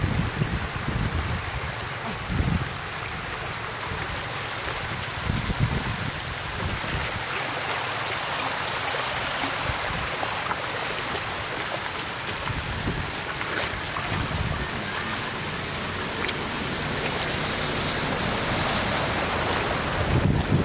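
Shallow water running steadily over muddy ground in a continuous rushing flow, with a few low thumps in it.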